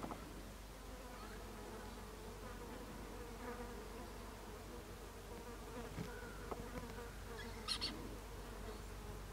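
A flying insect buzzing as a steady, wavering hum, with a brief high-pitched chatter about eight seconds in.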